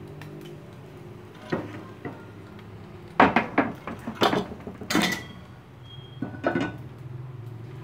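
Metal cookware clattering on a gas stove: a pot handled and set down on the burner grates, with a string of knocks and clanks, the loudest about three to five seconds in.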